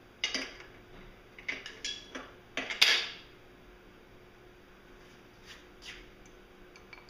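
Metal clinks and clanks from parts of a MerCruiser Bravo sterndrive upper unit being worked loose and handled: a quick run of sharp knocks in the first three seconds, the loudest just before three seconds, then two fainter clinks.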